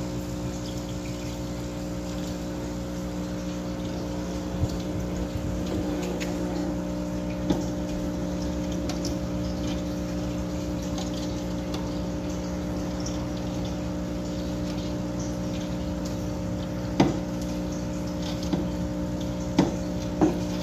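Submerged aquarium powerhead running with a steady electric hum, drawing tank water through a gravel-vacuum tube fitted with a polyfilter, with a constant sound of moving water. A few light knocks, most of them near the end.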